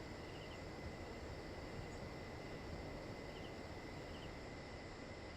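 Quiet background ambience during a held pose: a faint steady hiss with a thin, steady high tone, and soft short chirps recurring about once a second.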